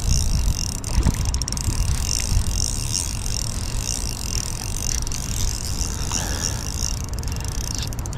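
Wind buffeting the microphone, a low, uneven rumble, under a steady high hiss.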